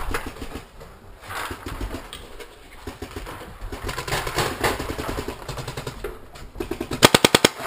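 Paintball marker fired in a rapid burst near the end, about nine loud, sharp shots in well under a second. Before the burst come fainter scattered pops and knocks.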